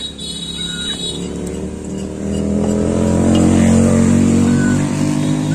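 An engine running, swelling louder about two seconds in and easing off near the end.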